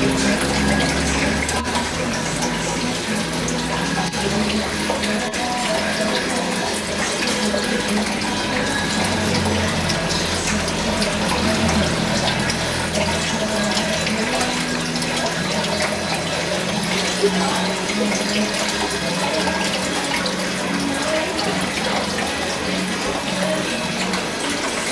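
Aquarium water bubbling and splashing steadily at the surface, where the tank's aeration keeps the surface churning.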